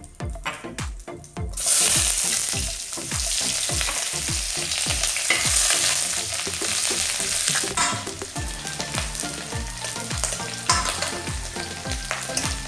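Chopped onion tipped into hot mustard oil in an aluminium wok, setting off a loud sizzle about a second and a half in, with a metal ladle scraping and stirring as the onion fries.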